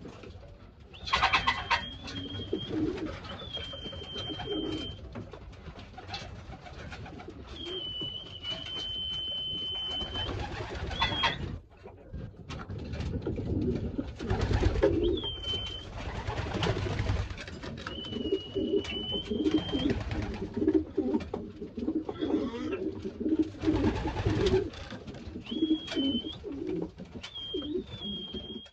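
Racing pigeons cooing in low, pulsing phrases, with several high steady notes held for a second or two and short bursts of noise in between.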